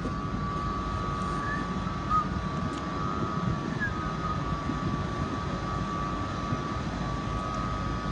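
Passenger trains standing at a station platform with their engines and on-board equipment running: a steady low rumble under a steady high whine.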